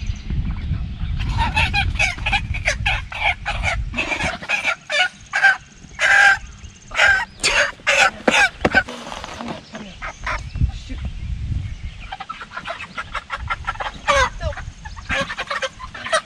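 Meat chickens squawking and clucking as they are grabbed by hand and lifted out of their pen, with low scuffling noise early on. A dense run of calls fills the first half, dies down about ten seconds in, then starts again near the end.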